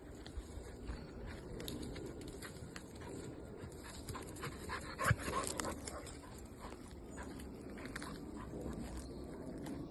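A dog panting close by, with scattered small clicks and a brief louder noise about halfway through.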